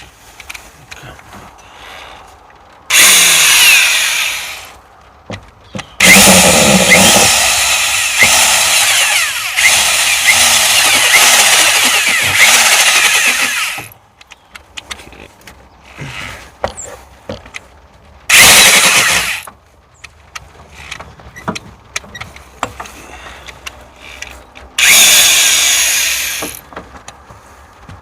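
Electric drill drilling a hole in a car battery cable, run in bursts: a short one about three seconds in, a long run of about eight seconds, then two short bursts near the middle and end, with clicks and handling noise between.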